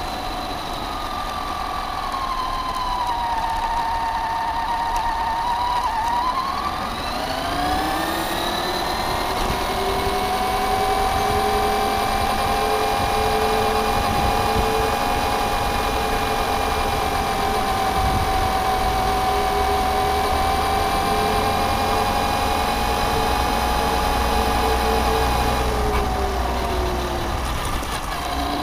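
Electric motor and gear drive of a Traxxas Stampede 4x4 radio-controlled car whining. The pitch sinks over the first few seconds, climbs steeply as the car speeds up about a quarter of the way in, holds steady while it cruises, then drops near the end as it slows.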